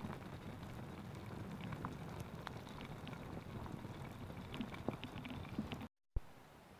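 Food cooking over a campfire: a steady sizzle with scattered small pops and crackles, cut off abruptly about six seconds in.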